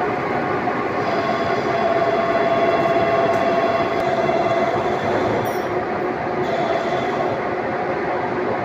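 Steady running noise of workshop machinery: a dense, unbroken mechanical din with a few steady tones through it.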